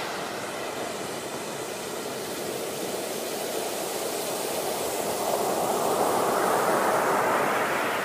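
Ocean surf: waves breaking and washing in, a steady rush of noise that swells to its loudest about six to seven seconds in as a wave crashes, then eases.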